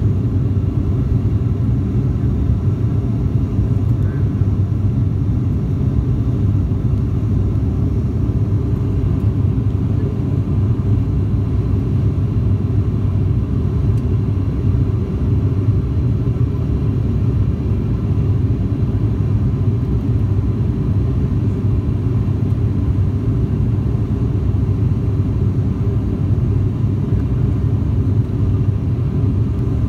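Steady low rumble of a jet airliner's cabin in flight: engine and airflow noise, unchanging throughout.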